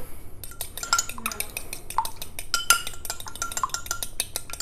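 A metal fork beating egg wash in a ceramic bowl: a rapid run of ringing clinks as the fork strikes the bowl's side, starting about half a second in.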